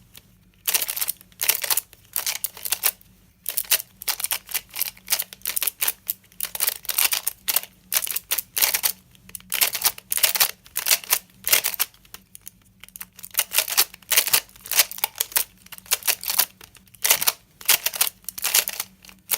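MoYu AoYan magnetic Skewb being turned by hand, its layers snapping round in quick flurries of sharp clicks with short pauses between. The clicking comes from the magnets catching as each turn lands, quite clicky.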